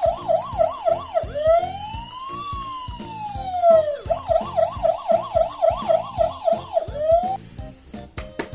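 Electronic siren alternating between a fast yelp of about three to four pitch sweeps a second and one slow wail that rises and falls. It returns to the fast yelp, then cuts off suddenly near the end.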